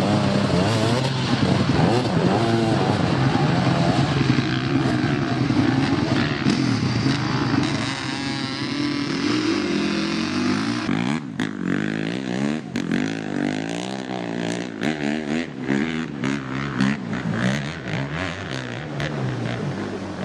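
Two-stroke dirt bike engines revving hard under load, their pitch rising and falling constantly. A run of sharp cracks and knocks comes in about halfway through.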